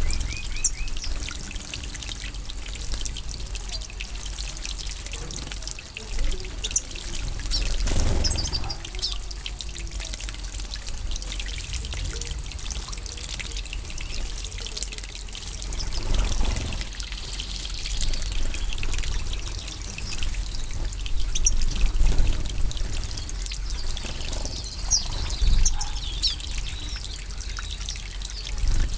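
Water trickling and splashing in a shallow pool as European goldfinches bathe, swelling several times, with short thin high chirps from the finches throughout.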